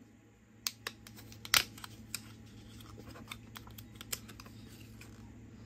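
Light clicks and taps from handling small cosmetic packaging, the eye paint tubes and their boxes, with two sharper clicks in the first two seconds and another about four seconds in.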